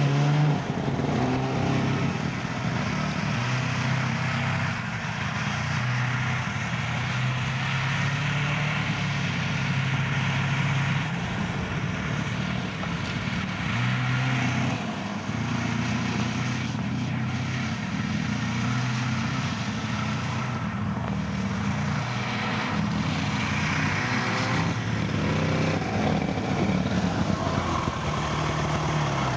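1972 Ski-Doo Olympique snowmobile's two-stroke engine running under way, its note rising and falling repeatedly with the throttle.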